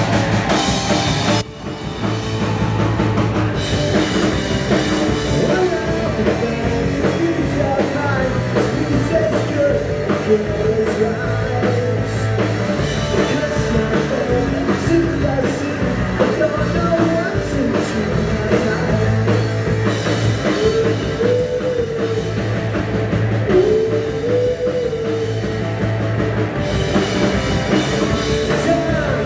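Live rock band playing: electric guitar, bass and drum kit, with a male lead vocal singing over them. The sound drops briefly about a second and a half in, then the band comes back in.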